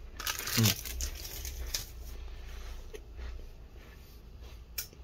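Plastic biscuit wrapper crinkling as it is picked up, loudest in the first second, then faint scattered ticks and rustles.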